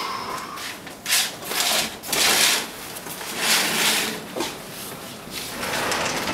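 Hotel room curtains pulled open along their track and a sliding glass balcony door slid open: a brief squeal at the start, then several scraping, rushing sweeps.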